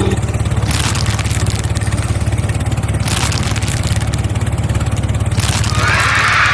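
An engine running steadily with a fast, even low pulse, with two short bursts of hiss over it and a brighter, higher noise coming in near the end.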